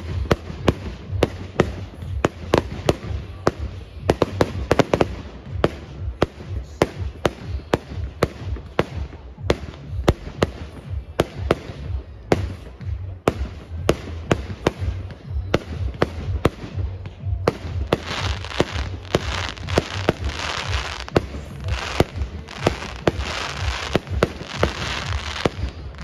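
Aerial fireworks shells bursting in rapid succession, a few sharp bangs a second. About two-thirds of the way through, a denser, continuous crackle joins the bangs.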